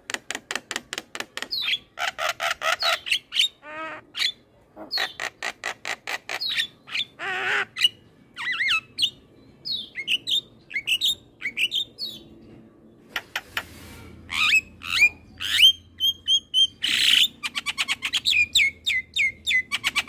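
Javan myna (jalak kebo) singing a long, varied song: fast runs of sharp clicks, harsh rasping notes and short whistled notes that slide down in pitch, in phrases with brief pauses between them.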